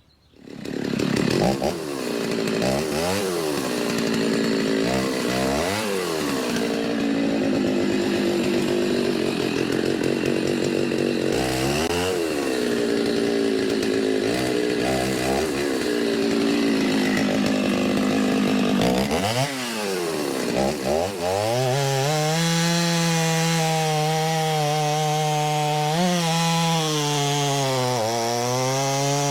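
Stihl two-stroke chainsaw bucking oak logs into firewood rounds. Through the first two-thirds its engine note dips and climbs back several times. From about two-thirds of the way in it holds a steady, slightly wavering pitch through a cut.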